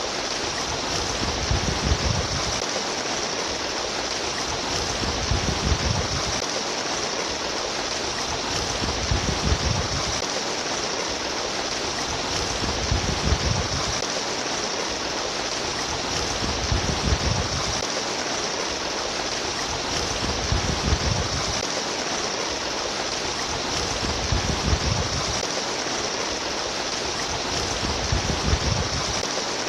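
Steady rushing and babbling of a stream of flowing water, with a low swell that comes back about every four seconds.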